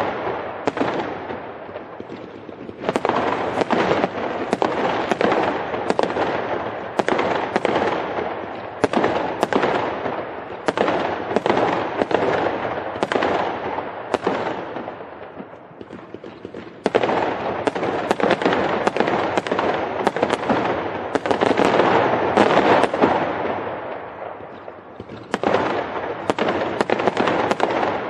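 Fireworks going off in rapid volleys: many sharp bangs, each trailing into a fading crackle. The volleys come in waves, easing off briefly about halfway through and again a little past three-quarters.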